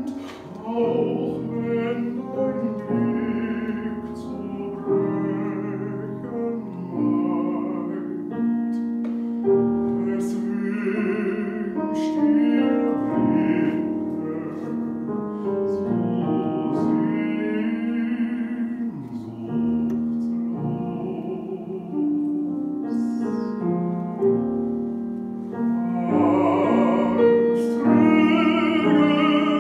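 Baritone singing a German art song (Lied) with vibrato, accompanied by a grand piano.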